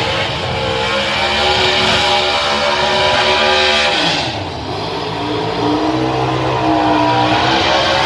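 Drag racing cars' V8 engines revving at high rpm during burnouts, the pitch dipping about halfway through and climbing again.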